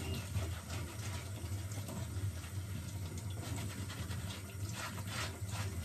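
Kitchen tap running while robot vacuum parts are rinsed by hand in the sink, with light splashes and knocks over a steady low hum.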